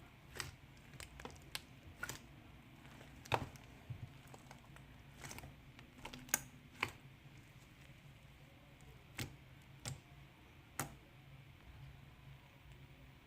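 Sticky, chewy slime being handled, giving scattered faint clicks and pops at irregular intervals, a few sharper than the rest.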